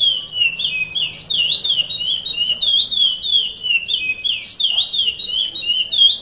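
Male chestnut-bellied seed finch (curió) singing the Paracambi 'rompe nuvem' song: a continuous, loud run of clear whistled notes that slide down and back up, a few each second.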